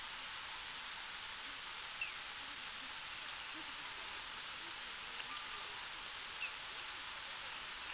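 Steady hiss of street ambience, with two short, faint high chirps about two seconds and six seconds in.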